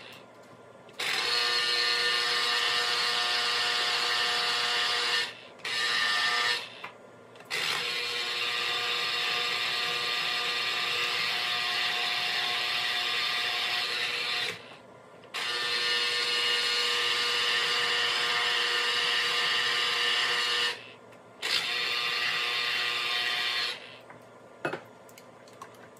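Electric citrus juicer's motor whining as lemon halves are pressed down on its spinning reamer, running in five long stretches with short breaks between them, and stopping about two seconds before the end. It is really loud.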